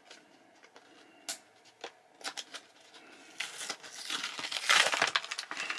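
Pokémon card booster pack being torn open by hand, its foil wrapper crinkling: a few light clicks at first, then crackling tearing that grows loudest near the end.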